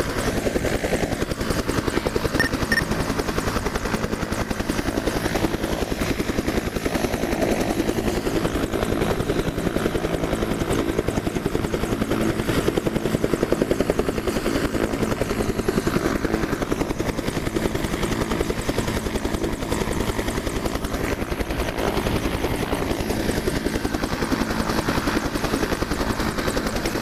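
Helicopter running on the ground with its rotor turning: a steady, rapid blade chop over the engine drone.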